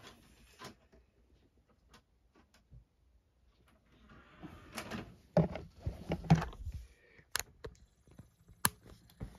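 Clicks and knocks of hands handling a DVD player and a disc, with some rustling. The sounds are scattered and sparse at first, then come thick from about four seconds in, with a few sharp clicks near the end.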